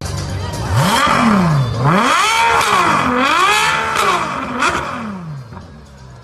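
Car engine revved hard about four times in a row, the pitch climbing and dropping with each blip, with sharp crackles between the revs; it dies away after about five seconds.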